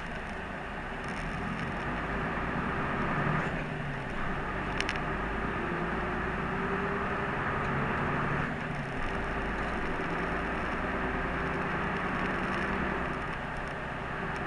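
Route bus running along the road, heard from inside the cabin: steady engine hum and tyre noise, with a faint tick about five seconds in.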